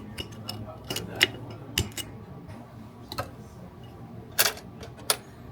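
Irregular small metal clicks and taps from a hand tool working at a stuck bolt catch plunger in a Spikes Tactical AR-15 lower receiver. There are about six of them, the loudest about four and a half seconds in.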